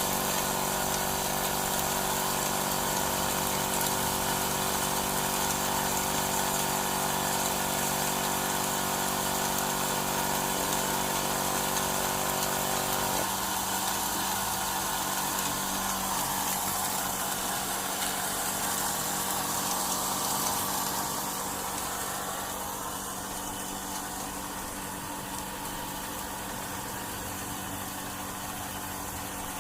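Small petrol engine running a homemade pepper-grinding mill at a steady speed. About thirteen seconds in its note changes, and about two-thirds through it drops quieter and stays there.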